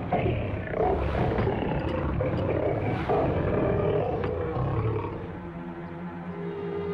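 Lion-like roaring and growling in repeated surges, faked from behind a closed door to pass for a lion kept in the room. It dies down about five seconds in, and a held music tone comes in near the end.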